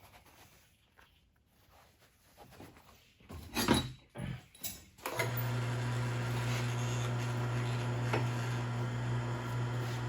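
A few knocks and clatters of metal being handled, then about five seconds in an electric drill starts and runs with a steady hum, drilling out a bolt hole to a larger size.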